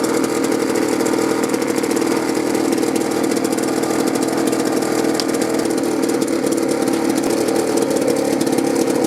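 Small two-stroke leaf blower engine running steadily on a newly fitted aftermarket carburetor, with the air filter and cover on for final carburetor tuning.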